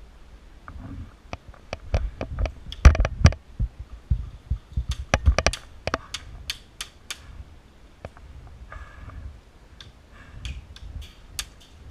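Airsoft guns firing: irregular strings of sharp clicks and snaps, coming in three clusters, with low thuds underneath.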